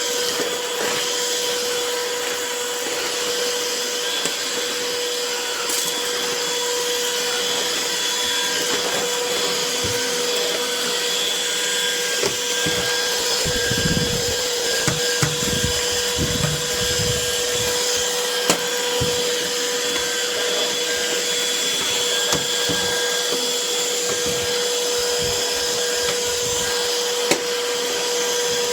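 Craftsman V20 cordless stick vacuum running steadily, its motor giving a constant whine over a rush of air. Scattered short clicks throughout, and a run of low bumps about halfway through.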